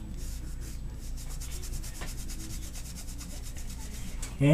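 Fast, even rubbing strokes of a freshly washed mouse scroll wheel being wiped dry by hand, over a steady low hum.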